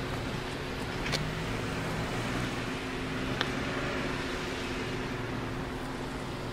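Kawasaki Z1's air-cooled inline-four idling steadily through a Tokyo Tekkan exhaust, with a couple of faint clicks.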